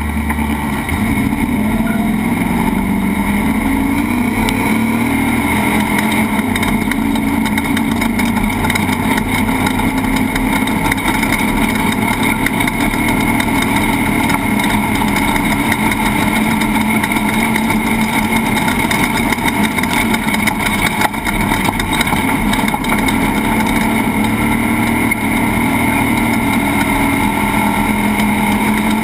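Off-road race truck's engine running hard and steadily, its pitch drifting a little up and down, with continuous rattling and jolting over rough track.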